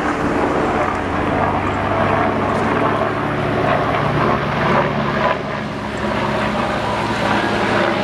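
Diesel route bus driving slowly past, its engine running with a steady low hum.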